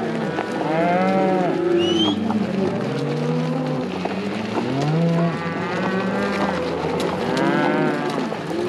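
A herd of cattle mooing and bawling, many overlapping calls from cows and calves.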